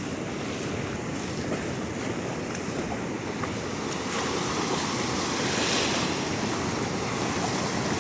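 Pacific Ocean surf breaking and washing up the sand, swelling louder around the middle, with wind buffeting the microphone.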